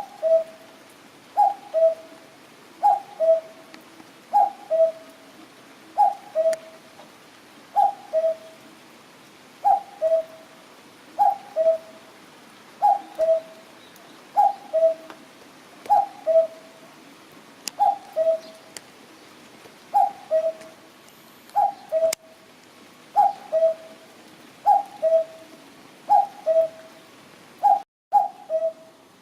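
Common cuckoo calling its two-note "cuck-oo", the second note lower than the first, repeated steadily about every second and a half.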